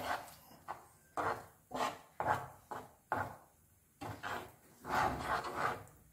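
Wooden spatula scraping and pushing moong dal paste around a non-stick pan in hot ghee, in quick repeated strokes with a short pause just past the middle. This is the constant stirring that keeps the paste from forming lumps as it starts to roast.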